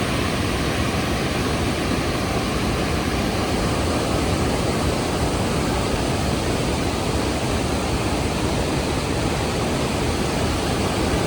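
Rhine Falls, a large river waterfall, crashing close by: a loud, steady rush of water with deep rumble, unchanging and without breaks.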